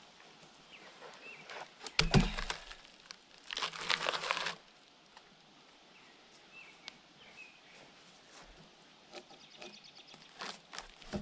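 A heavy wooden thump about two seconds in, as a log is set down on another log, followed by about a second of wood scraping and rustling. Later there are a few light knocks.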